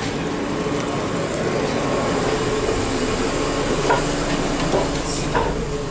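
Steady rumble and hum of an ED4M electric multiple-unit train standing at the platform, with a few short knocks in the second half as someone steps aboard through its door.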